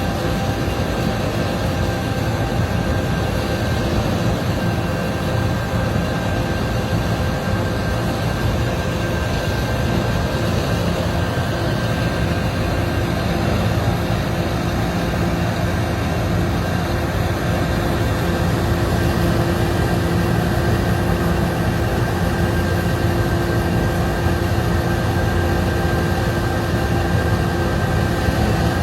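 Heavy machinery running steadily: a continuous engine drone and rumble with a few constant humming tones, unchanging throughout.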